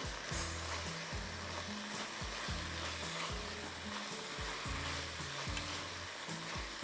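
Marinated chicken strips sizzling steadily in a kadhai while being stirred with a silicone spatula, their juices cooking off in steam. A background music bass line moves in stepped notes underneath.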